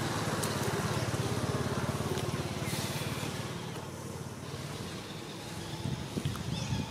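An engine running with a fast, even low pulse, growing fainter from about three seconds in.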